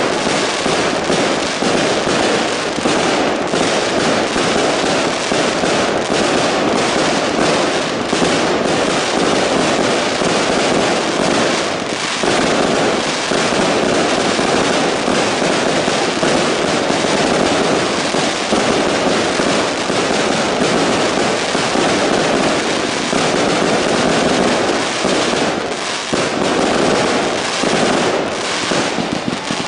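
Aerial fireworks going off in a dense, unbroken barrage, bang after bang overlapping with no pause.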